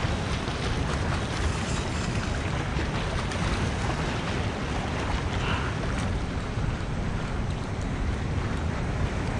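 Wind buffeting the microphone outdoors by the water: a steady, low rushing noise with no clear engine or voice in it.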